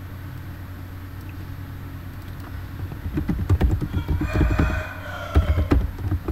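Computer keyboard typing in short runs from about three seconds in. A chicken calls in the background a little after four seconds in: one short pitched call lasting under a second.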